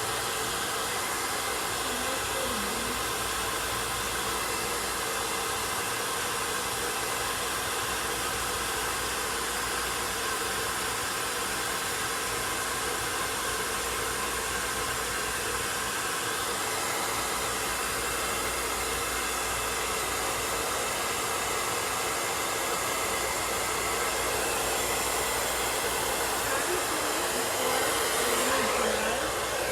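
Handheld blow dryer running steadily, blowing across the wig's lace, its motor hum and rush of air unbroken and a little louder near the end.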